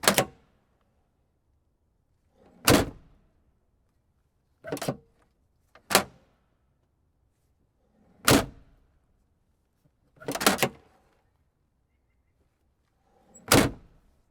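Car trunk lid shutting and latching, about seven separate thunks one to three seconds apart, some with a quieter rustle or latch click just before the slam.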